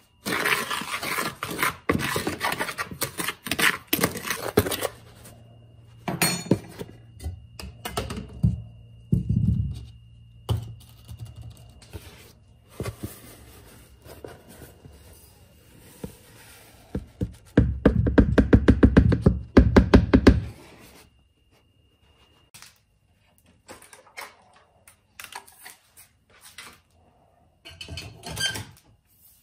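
A spoon stirring a dry powdered fire-assay charge in a plastic tub, a dense scratching rattle, then the powder being poured into a crucible. About 18 seconds in there is a loud burst of rapid rattling knocks lasting two to three seconds as the tub is emptied, followed by a few faint clinks.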